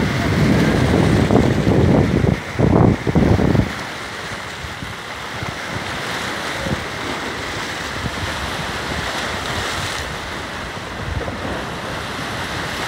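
Small sea waves washing and breaking over shoreline rocks, with wind buffeting the microphone. The rushing is loudest for the first few seconds, then settles into a steadier, quieter hiss of surf and wind.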